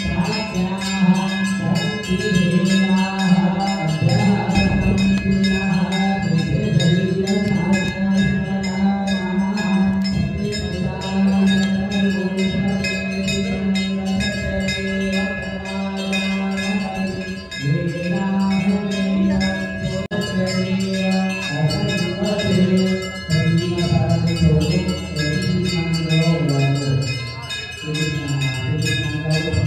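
Temple bells ringing without a break during an aarti, many steady overlapping tones, with a crowd of voices singing or chanting along underneath.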